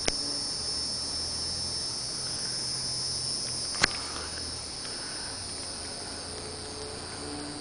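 Hieroglyphic cicada (Neocicada hieroglyphica) calling: a steady high-pitched buzz, over a low steady hum. Two sharp clicks, one right at the start and a louder one about four seconds in.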